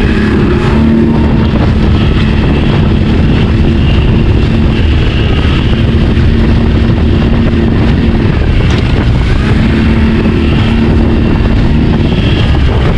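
Outboard motor running on a small inflatable boat underway in rough swell, with heavy wind and water noise. The engine's steady note comes through in stretches and fades between them.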